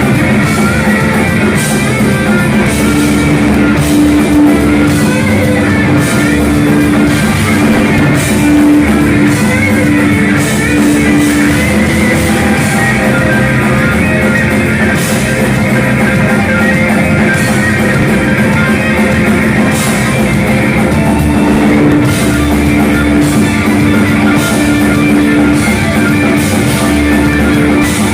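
Heavy metal band playing live: distorted electric guitars over a drum kit, loud and steady, with a long held guitar note through much of it.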